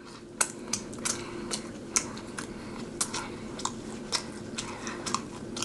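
A person chewing with the lips closed: soft, irregular mouth clicks and smacks, a few a second, over a faint steady hum.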